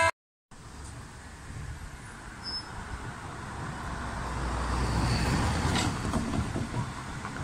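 A car driving across the level crossing and passing close by, its engine and tyre noise building to a peak about five seconds in and then easing off, over steady road traffic.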